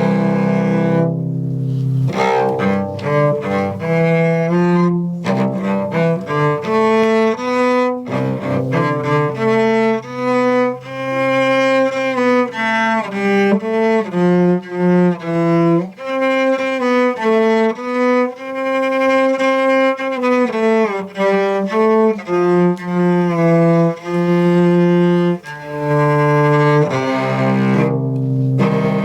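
Live acoustic instrumental tune on bowed string instruments, with a low cello-like line under the melody, moving between long held notes and quicker runs.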